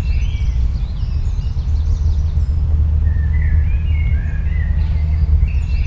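Several songbirds chirping and trilling over a strong, steady low rumble.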